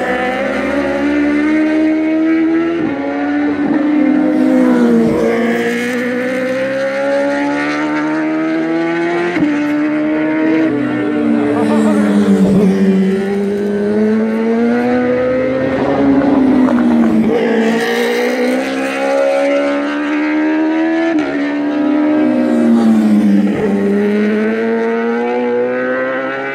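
Superbike racing motorcycles' high-revving engines accelerating hard one after another, the pitch climbing and then dropping back again and again as they shift up through the gears.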